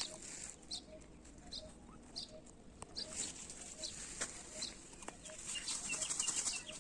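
Birds calling outdoors: a short low note repeated about three times a second, mixed with higher chirps, over a steady high hiss of background birdsong or insects, with a few sharp clicks.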